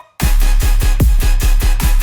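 Dubstep music, without vocals. After a split-second of silence, the beat slams back in with heavy sub-bass and a rapid run of punchy drum hits that drop in pitch.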